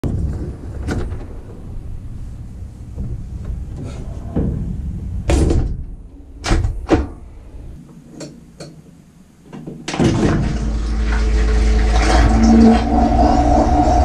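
Portable dishwasher heard from inside its tub: clicks and knocks as the racks are handled and the door is shut, a few seconds of near quiet, then about ten seconds in its motor starts with a steady low hum.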